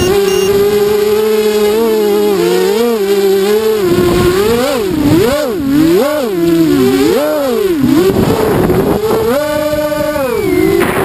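A ZMR 250 quadcopter's four brushless motors (DYS BE1806 2300KV) spinning 5-inch Gemfan props, giving a steady whine whose pitch swings up and down several times in the middle as the throttle changes, then holds higher for about a second near the end. A rapid electronic beeping sounds for the first half-second.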